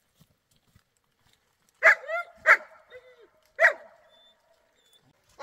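A dog barking: three loud barks about a second apart, with softer yelping calls between them.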